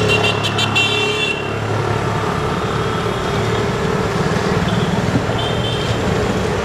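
Street traffic running steadily, with a high-pitched vehicle horn beeping rapidly for about the first second and a half and fainter short toots a few seconds later.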